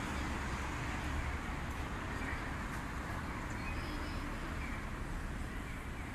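Steady city background noise of distant road traffic: an even low rumble with a hiss over it.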